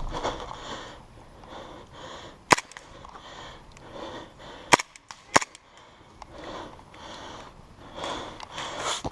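Airsoft pistol shots: three sharp cracks, one about two and a half seconds in, then two close together a little after the middle.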